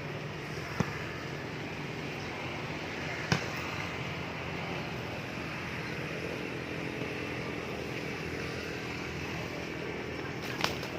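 Steady background noise with three short, sharp knocks: about a second in, after about three seconds, and near the end.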